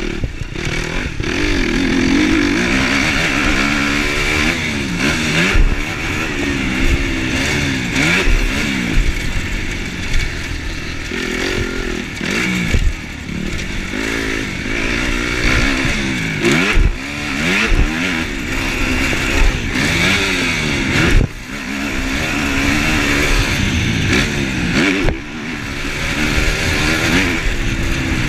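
Kawasaki KX250F four-stroke single-cylinder dirt bike engine being ridden hard around a motocross track, revving up and down repeatedly through the gears and corners, with a few sudden brief drops where the throttle is shut off.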